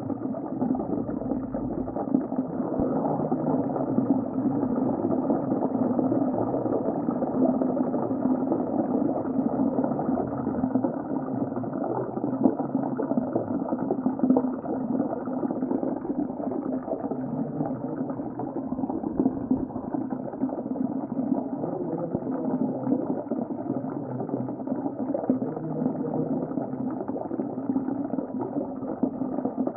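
Underwater ocean ambience: a steady, dull bubbling and rushing of water, with no high sounds in it.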